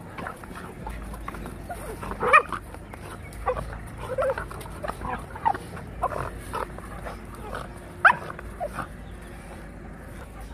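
A Labrador puppy and a Rottweiler tussling, giving short scattered bursts of dog vocalising, with a sharp high yelp about eight seconds in.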